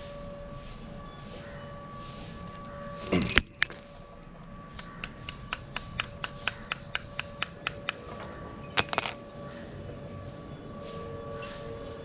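Metallic clinks and clatter as a motorcycle disc brake caliper and tools are handled during refitting. A loud clatter comes about three seconds in and another clink near nine seconds. Between them is a run of about a dozen even, sharp clicks, about four a second.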